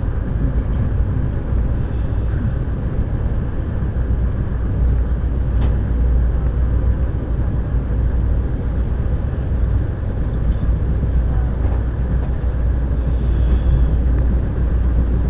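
Steady low rumble of the Amtrak California Zephyr passenger train running at speed, heard from on board, with wheel-on-rail noise. A single sharp click about six seconds in.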